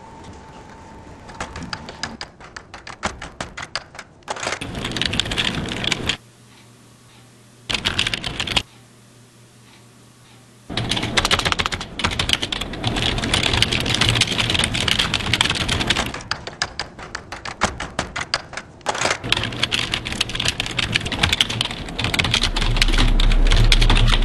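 Fast typing on computer keyboards: dense runs of key clicks in bursts, with two short pauses. A low drone swells in near the end.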